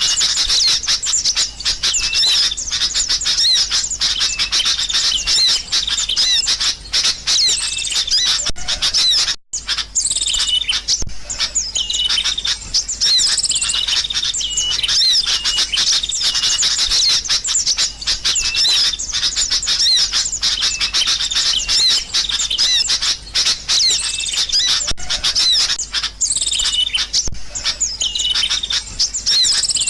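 Sooty-headed bulbuls (kutilang) chirping busily, many quick overlapping calls forming a dense, noisy chatter. The chatter breaks off for an instant about nine and a half seconds in.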